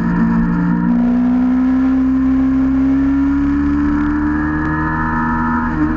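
A vehicle's motor running steadily with a strong whining hum that slowly rises in pitch, over a low rumble of wind and road noise.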